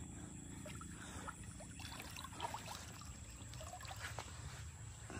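Faint trickling of water with small, scattered splashes and soft ticks.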